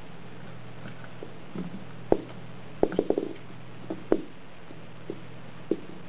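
A kitten batting and pouncing on a small bouncy ball on a wooden floor: a scatter of sharp knocks and taps, with a quick run of four around three seconds in, over a steady low hum.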